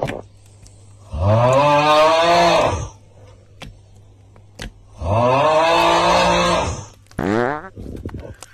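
Two long, drawn-out calls from a voice, each about a second and a half, rising in pitch at the start and dropping at the end, a few seconds apart. A short upward-sweeping squeal follows about seven seconds in.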